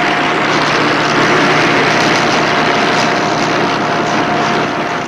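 Loud, steady engine noise with a thin, steady whine held through it.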